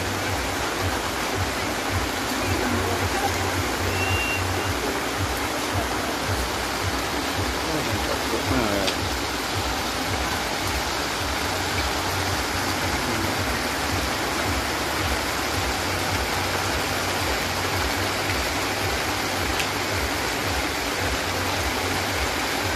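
Steady heavy rain falling, an even wash of noise from rain on the wet street and umbrellas.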